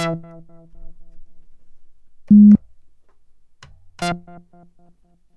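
Synthesizer notes from a Modal Craft Synth 2.0 and an IK Multimedia UNO Synth, recorded from their line outputs. A plucked note dies away at the start, a short loud held note comes about two seconds in, and another plucked note dies away about four seconds in. Between the notes the background is clean, with none of the USB ground-loop noise, which an inline ground loop noise isolator has removed.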